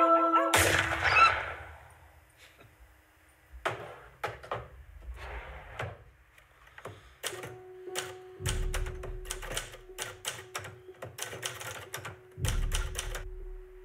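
A single sharp bang about half a second in, then a typewriter's keys clacking in irregular runs, with two heavier thumps and a steady hum under the later typing.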